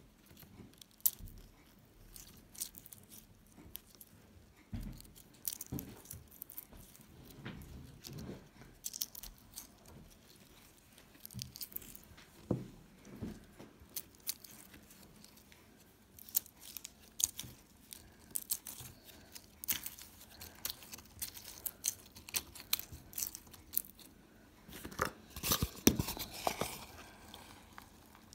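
Brittle, hardened green slime pieces crackling and crunching as fingers press and break them, with irregular sharp cracks throughout and a dense burst of crackling near the end.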